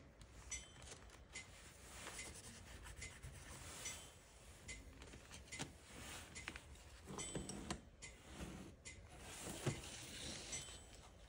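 Faint rubbing and rustling of a sketchbook's paper pages handled by hand as a page is turned, with small scattered clicks.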